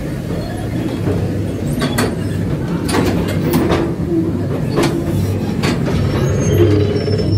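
Ride train of the Calico Mine Ride rolling through a mine tunnel: a steady low rumble with a handful of sharp clacks from the wheels on the track.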